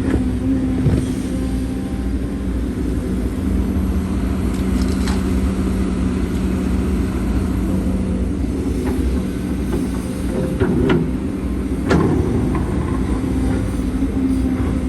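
Heavy diesel earthmoving machinery running steadily at a held pitch, with a few sharp clanks about five, eleven and twelve seconds in.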